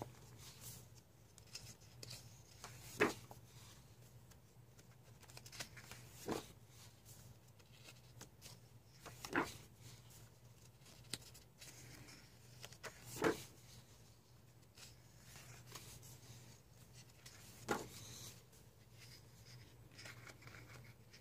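Thick pages of a large coloring book being turned one after another: five crisp paper flaps about three to four seconds apart, with fainter paper rustles between them.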